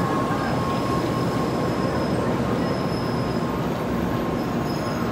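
Shinkansen train pulling out of the station, its cars rolling past the platform with a steady rumble and faint high-pitched tones that come and go.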